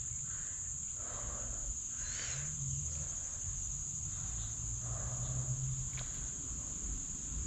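Crickets trilling in a steady, unbroken high-pitched chorus, with a low rumble and soft rustling underneath and one sharp click about six seconds in.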